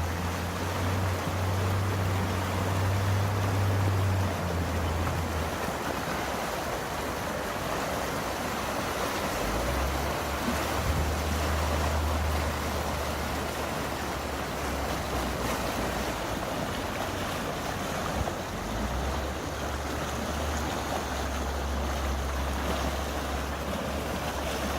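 Flash floodwater rushing down a dry wadi channel as the flood arrives, a steady dense rushing. A low rumble sits underneath; it drops out about five seconds in and returns after about ten.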